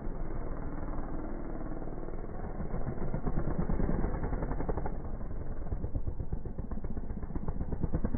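Dirt bike engine running and revving, muffled as from a low-quality recording.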